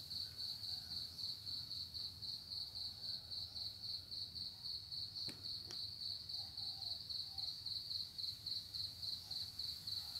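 An insect chirping steadily, a high-pitched call pulsing evenly several times a second, with two faint clicks a little past halfway.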